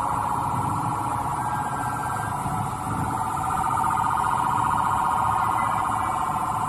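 An electronic alarm warbling continuously in a rapid, fluttering tone, dipping briefly about three seconds in, over a low rumble.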